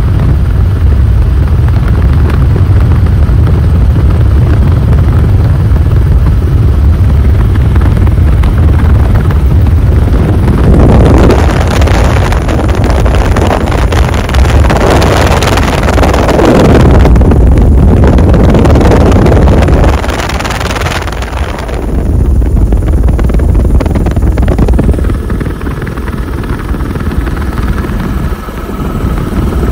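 Helicopter in flight heard from the cabin: a loud, steady low rumble of rotor and engine. In the middle stretch wind gusts over the microphone in surges, then it settles back.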